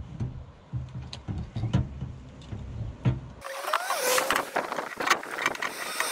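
Cordless drill-driver running in short bursts as it drives in the screws that hold a small safe down, with sharp clicks and knocks. About three and a half seconds in, the sound changes abruptly to a hissy noise full of sharp clicks.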